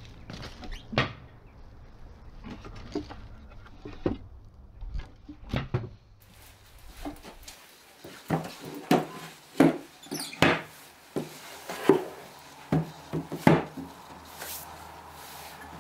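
Small chipboard cabinet being handled on a wooden workbench: a string of sharp wooden knocks and thuds from about eight seconds in, as it is set down and moved. Before that, a few lighter knocks from the cabinet's wooden door being handled, over a low rumble of wind on the microphone.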